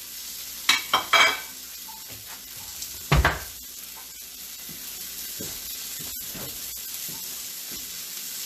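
Floured chicken breast frying in a large pan, a steady sizzle. Over it come a few short sharp sounds about a second in and a single knock about three seconds in.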